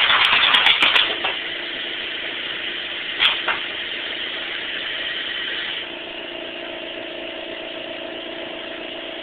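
A burst of rapid paintball-marker shots and air noise stops about a second in, leaving a small air compressor's motor running with a steady hum. A single short pop comes a little past three seconds in.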